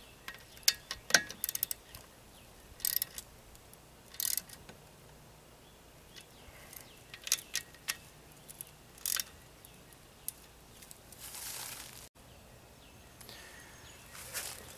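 Hand wrench turning the small water pump housing bolts on an outboard lower unit: scattered metal clicks and a few short ratcheting bursts. Near the end comes a soft rubbing as a shop rag wipes the drive shaft.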